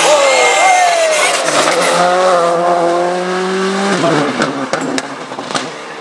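Škoda Fabia Rally2 car's engine dropping in pitch as it brakes into a hairpin, then pulling out of the corner with a steady, slowly rising note. About four seconds in, the engine sound cuts off sharply as the car goes out of sight, leaving a few sharp cracks.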